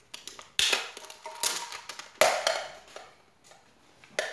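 A Pokémon card mini tin being handled and opened: three rustling, scraping bursts of noise, then a sharp click near the end.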